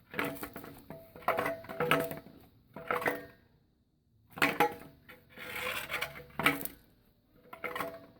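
Loose metal exhaust pieces clanking and ringing in several short bouts, with a quiet pause midway.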